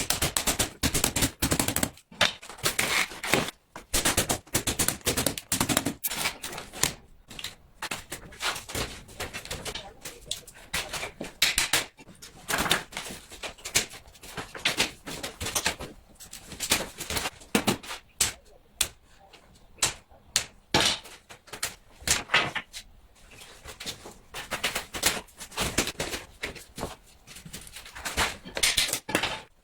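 Hand carving tools working wood: irregular sharp taps and knocks with short scraping cuts, in uneven bursts.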